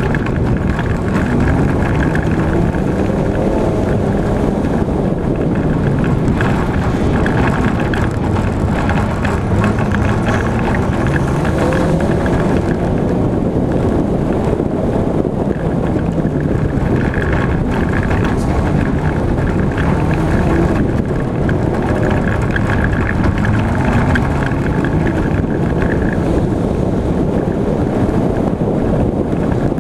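Daihatsu Charade G102's 1.3-litre four-cylinder engine running hard in a dirt autocross race, its pitch climbing and dropping again and again as the driver accelerates, shifts and lifts for corners, over a haze of wind and road noise.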